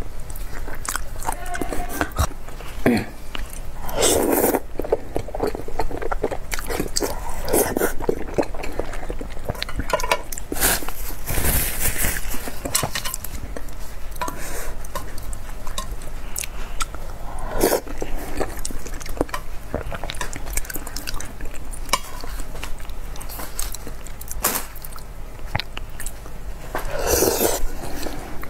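Close-miked eating: biting and chewing, with chopsticks clicking against a metal bowl and several louder bursts of mouth noise.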